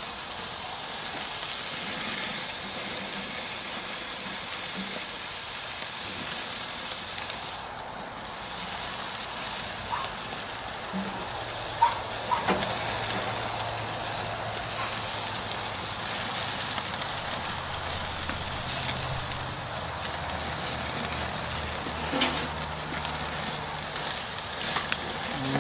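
Food sizzling on a hot charcoal-and-wood grill: a steady hiss with a few light clicks, dipping briefly about eight seconds in.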